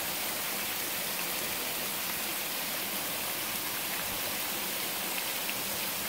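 Small travertine waterfall with a low flow of water, its falling water making a steady rushing splash.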